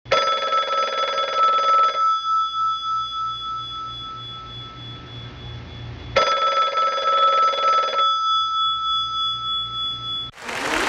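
A bell-like ring sounds twice, each ring about two seconds long and the two about four seconds apart, each fading away after it stops. Music and applause come in near the end.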